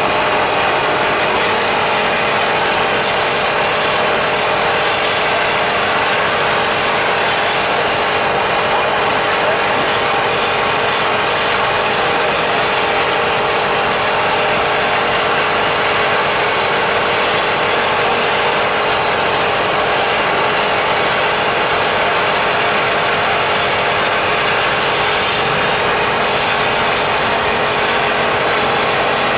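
A machine running steadily with a loud hiss and a constant hum, unchanging throughout.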